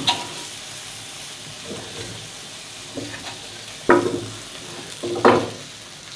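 Whole lamb roasting on a charcoal parrilla, sizzling steadily, with three sharp clinks and knocks (at the start, about four seconds in and about five seconds in) as a knife cuts the cooked hind quarter free and it is lifted onto a wooden board.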